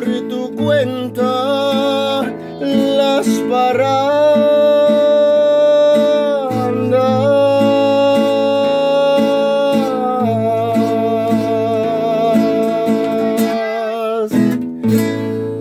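Nylon-string classical guitar strummed as a ranchera accompaniment, with a man's voice holding long sung notes with vibrato over it. The playing breaks off for a moment near the end, then a chord is struck again.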